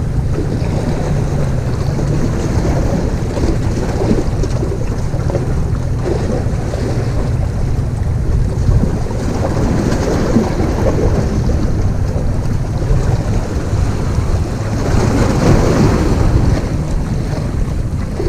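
Wind buffeting the microphone, with the sea washing against the rocks below.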